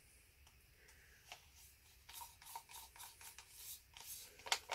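Faint rubbing and crinkling of a thin clear plastic cup being handled inside a paper cup, a string of small irregular clicks and scrapes starting about two seconds in.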